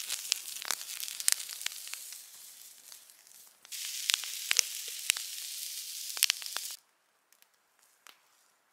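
Pork skewers sizzling on a steel mesh grill grate over a wood fire, with sharp pops and crackles. The sizzle fades, comes back suddenly about three and a half seconds in, and cuts off abruptly near the end, leaving only faint clicks.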